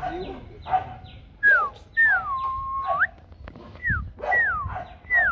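Mông Cộc (H'Mong bobtail) puppy whining: five or so thin high whines that slide down in pitch, one of them drawn out for about a second around two seconds in and turning up at its end.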